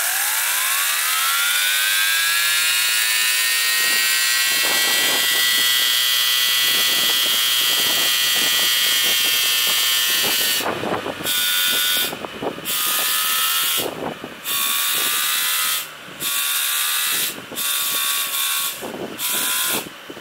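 Homemade model steam turbine spinning up on steam: a hissing rush with a whine that rises in pitch over the first few seconds and then holds steady. In the second half the hiss and whine repeatedly cut out and come back, about every second and a half.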